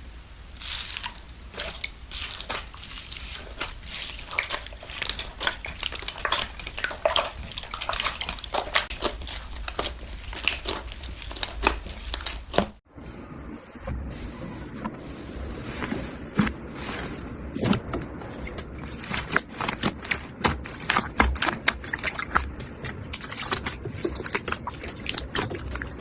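Slime being squished and kneaded by hand: a dense run of small wet clicks and pops, with a brief gap about 13 seconds in.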